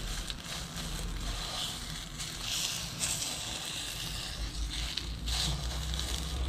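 A slice of oil-soaked bread frying in a pan, the oil sizzling and swelling louder in patches as the bread is pressed and turned by hand.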